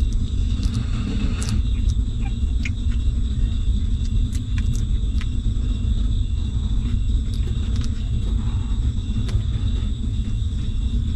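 A steady low rumble, with scattered faint clicks and smacks from newborn puppies suckling at their mother.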